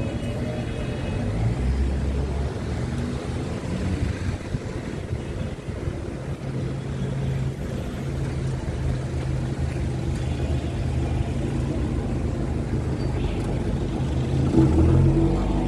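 A motor vehicle engine idling steadily with a low hum, a little louder near the end.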